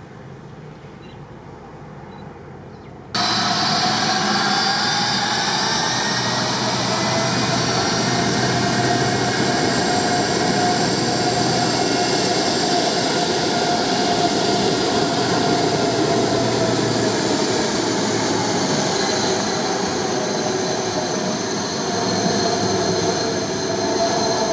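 Airbus A330's jet engines running at high power with a loud, steady rush and a high whine. The aircraft is swinging round at the runway end and its jet blast is building for the take-off. The sound cuts in suddenly after about three seconds of quieter background.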